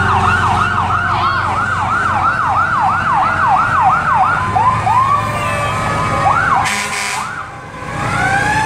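Fire truck siren on a fast yelp, sweeping up and down about four times a second. About four seconds in it breaks into a few short whoops, and near the end a slow rising wail begins. Truck engines run underneath.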